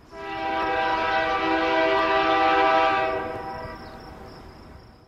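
A train horn sounding one long, steady chord, held for about three seconds and then dying away.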